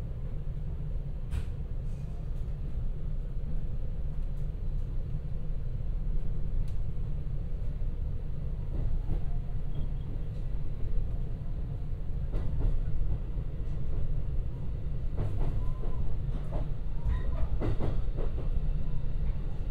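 Interior sound of a JR West 223-series electric train gathering speed: a steady low rumble of wheels on rail, with scattered clicks and knocks that come more often in the second half.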